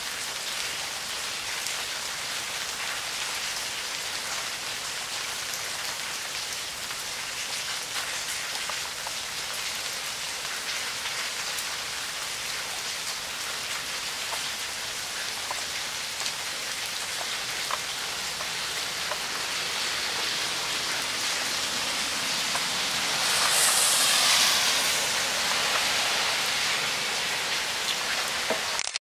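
Heavy rain falling steadily and pattering on the ground and nearby surfaces. It grows louder for a couple of seconds near the end.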